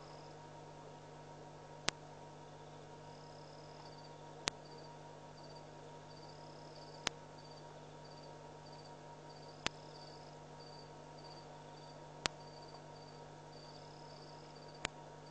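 Night insects chirping faintly in short, high, pulsed trills over a steady low hum, with a sharp click about every two and a half seconds.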